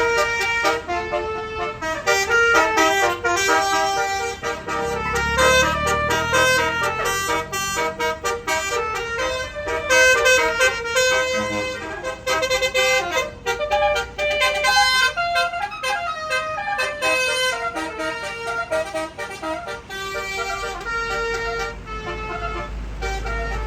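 A bus's Basuri telolet horn playing a fast tune of short, bright toots in quick succession. An engine rumble swells under it about five seconds in and again near the end.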